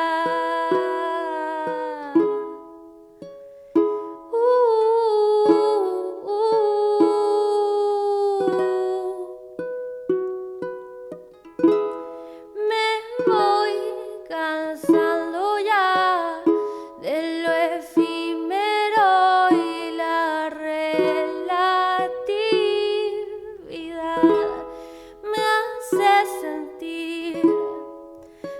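Instrumental passage of a song with no lyrics: short plucked notes and chords under a wavering melodic lead line.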